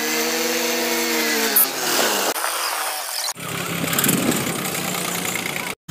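Swaraj 744 FE tractor's diesel engine working hard under the drag of a heavily loaded sugarcane trolley, a load heavy enough to lift the tractor's front wheels off the ground; the engine's pitch sags about two seconds in. The sound cuts abruptly a little past three seconds to another stretch of engine running with a steady hum, then drops out briefly at the very end.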